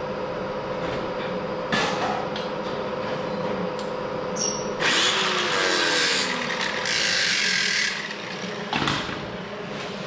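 Compressed air from a blow gun hissing in two bursts in the middle, blowing debris out of the cut-out lower quarter panel opening, over a steady shop hum. Sharp knocks come about two seconds in and near the end.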